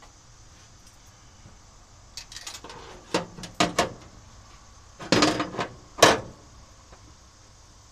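A few sharp knocks and clatters, bunched about two to four seconds in, then two louder bangs around five and six seconds.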